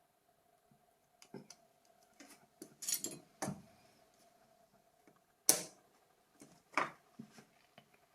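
Irregular small clicks and taps of tiny phone parts and tools being handled during reassembly of a Nokia 7230 slide phone, with the sharpest click a little past halfway and another soon after.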